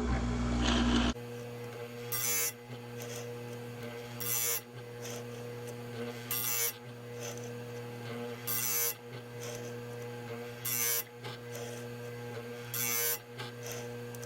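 Electric chain sharpener's motor running with a steady hum, its grinding wheel touched briefly against a chainsaw chain tooth about every two seconds, six short grinds in all. The sound is louder for the first second, then drops suddenly.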